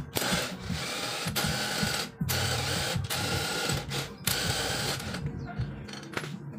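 Cordless drill spinning the threaded screw of a homemade rebar bar clamp through a socket, in three runs of about two seconds with brief stops between. It stops about five seconds in.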